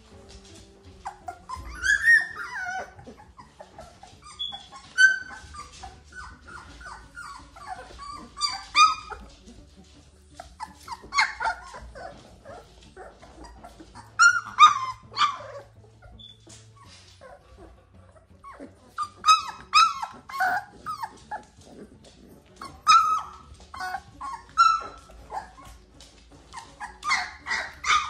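A litter of young puppies squealing and yipping in short clusters of high calls every few seconds while they play together.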